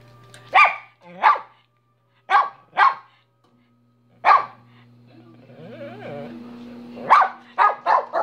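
Small chihuahua-type dog barking in short yaps: two, then two more, a single bark, and a quick run of four near the end, over a steady low hum.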